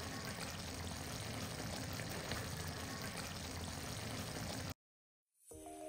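Mutton curry cooking in oil in a pot, a steady sizzle and bubble with fine crackles, which cuts off abruptly near the end; background music starts just after.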